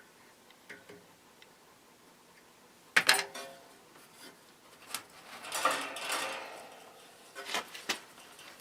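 Metal clinks and scraping as the steel fan blade is worked off the motor shaft: a sharp clank about three seconds in, then a scraping rattle and a few smaller knocks.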